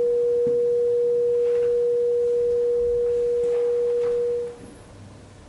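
A single steady pure electronic tone, sine-wave-like with no overtones, held at one pitch and then cut off sharply about four and a half seconds in.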